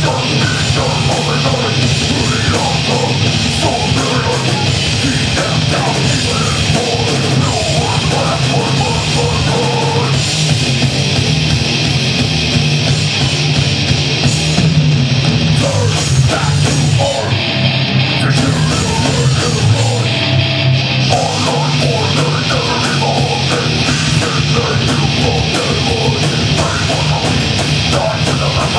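Live heavy metal band playing loudly: distorted electric guitars, bass and drums in a dense, unbroken wall of sound.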